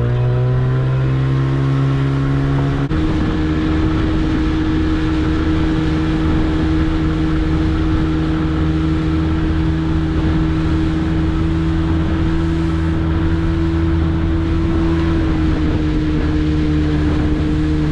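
Small fishing boat's engine running steadily under way. Its pitch steps up slightly about three seconds in and eases a little near the end.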